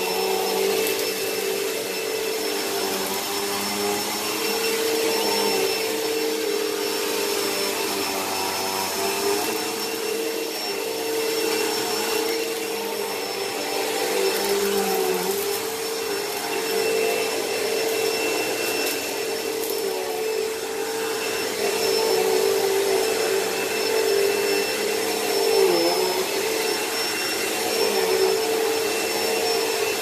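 Hoover Elite Rewind upright vacuum cleaner running steadily, a motor whine over a rushing hiss, as it vacuums. Its pitch dips briefly about halfway through and again near the end.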